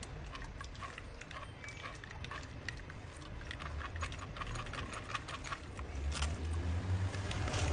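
A quick, irregular run of light clicks and taps, with a low hum growing louder in the second half.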